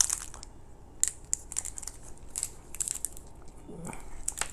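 Plastic candy wrappers crinkling as they are handled, a scatter of sharp crackles.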